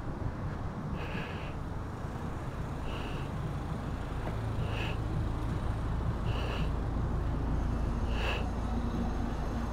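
Street ambience: a steady low traffic rumble, with a vehicle engine's hum rising from about halfway through. Over it, a short high chirp repeats about every two seconds.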